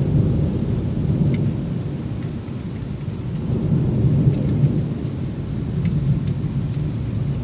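Thunder rumbling low and rolling during heavy rain, swelling near the start and again about four seconds in.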